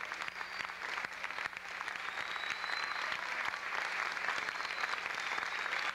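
Theatre audience applauding, many hands clapping steadily, growing a little louder about two seconds in.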